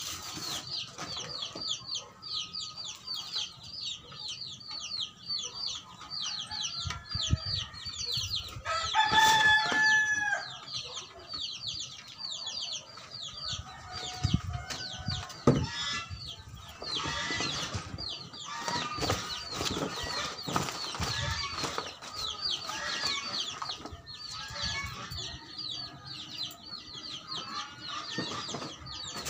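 A rooster crows once, about nine seconds in, the loudest sound, over a steady stream of rapid high bird chirps. A few dull thumps come around the middle.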